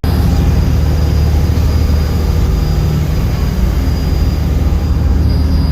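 Passenger ferry running under way: a steady, loud low engine drone with a rushing noise over it and a faint high whine.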